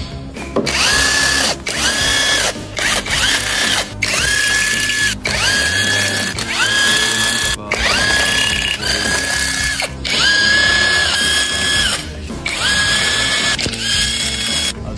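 A power tool such as a cordless ratchet or drill runs in about a dozen short bursts, each spinning up quickly to a steady whine. It is typical of bolts being run out during the teardown of a 5.7 L HEMI V8.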